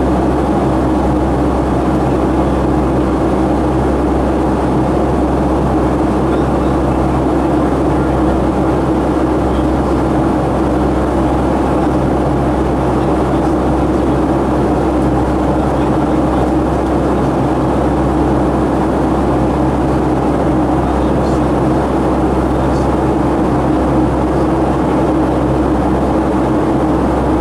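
Pratt & Whitney PW2000 turbofan engines of a Boeing 757-200 heard from inside the cabin during the climb-out. The sound is a steady drone: a low rumble with a strong, even hum and several steady engine tones over it.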